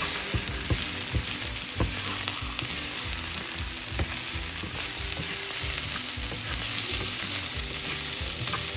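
An egg frying with chopped onions in hot coconut oil, sizzling steadily while a wooden spatula stirs and breaks it up, with irregular taps and scrapes of the spatula on the pan.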